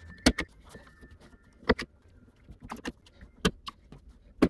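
Handheld stapler driving staples through a t-shirt into a cardboard box: a sharp snap about once a second, most of them a quick double click, five in all.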